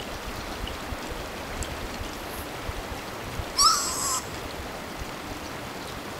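Hot-spring water running steadily, with a short high-pitched call about three and a half seconds in, the loudest sound.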